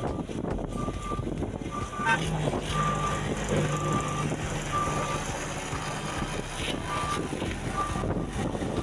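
Reversing alarm of a heavy road-works vehicle beeping about once a second, over the steady hum of its diesel engine, which grows louder about two seconds in.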